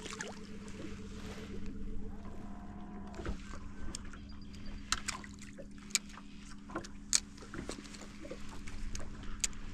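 Small fishing boat's motor humming steadily at a low pitch, with scattered sharp ticks and light water splashes against the aluminium hull.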